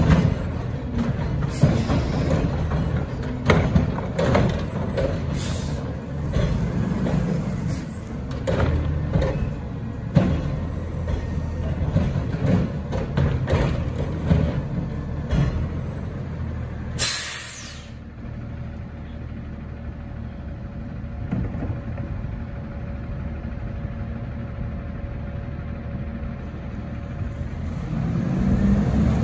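CNG-powered automated side-loader garbage truck running while its arm grabs, lifts and dumps wheeled carts, with repeated bangs and knocks over the engine and hydraulics. About 17 s in there is a short, loud air-brake hiss. Near the end the engine rises in pitch as the truck pulls away.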